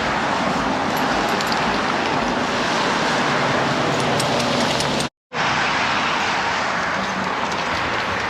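Steady rushing background noise with no clear single source, broken by a brief total dropout about five seconds in.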